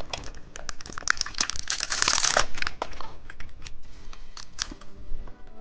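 Plastic candy packaging crinkling and crackling as it is handled and opened, densest about two seconds in.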